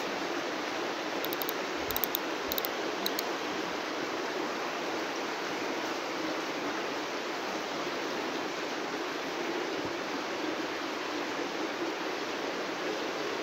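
Steady, even rushing noise, with a few light clicks and low knocks between one and three seconds in.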